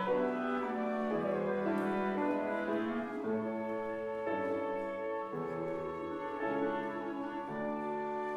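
Small ensemble of flutes, violins and grand piano playing a slow classical-style piece, holding sustained chords that change about once a second.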